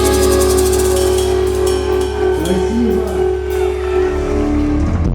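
Rock band playing live without vocals: guitars, bass and drum kit, with fast, even cymbal strikes in the first second or so, after which the playing thins out near the end.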